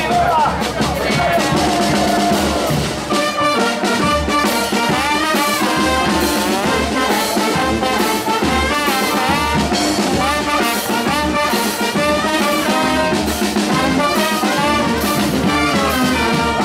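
Spanish charanga street brass band playing a lively tune: trumpets and trombones play riffs together over a bass drum with a cymbal and a snare drum keeping a steady beat.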